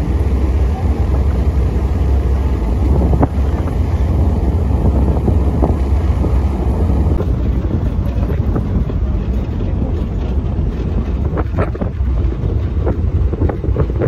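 Wind buffeting the microphone over the steady low rumble of a pickup truck driving along a rough dirt track, heard from the open rear bed, with a few knocks and jolts toward the end.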